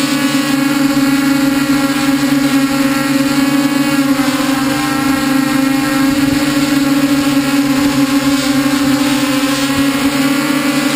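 Multirotor drone's motors and propellers running in flight, heard close up from a camera on the frame: a loud, steady hum with higher tones above it that waver slightly in pitch.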